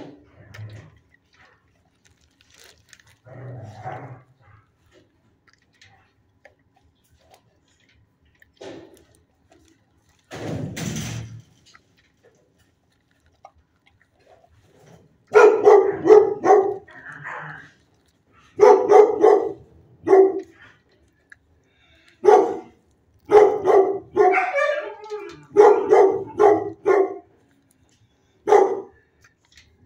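Dogs barking in a shelter kennel block: from about halfway through come repeated bursts of loud, deep barks in quick runs of several, with short gaps between. Before that there are only faint scattered sounds and one short noise about a third of the way in.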